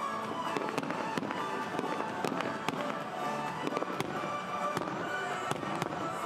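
Fireworks going off in a rapid, irregular run of sharp bangs and crackles, with music playing underneath.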